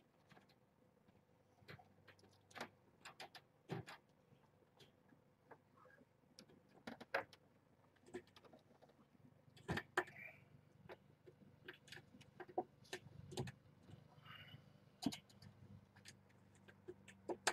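Faint, irregular light clicks and taps of kittens scrambling and playing on a towel in a wire-panel pen, with a couple of brief high squeaks.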